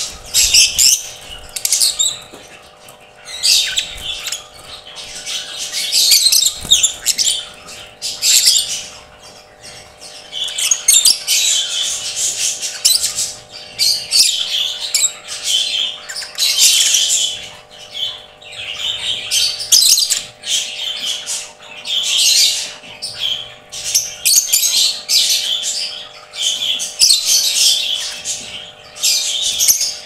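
Caged lovebirds calling: shrill chirps and squawks in repeated bursts of a second or two, with short pauses between.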